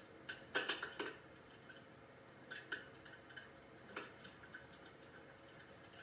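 Faint, irregular crackling pops from the PuraFlame Klaus electric fireplace insert's built-in fire-crackling sound effect: a quick cluster of pops about half a second in, then scattered single pops.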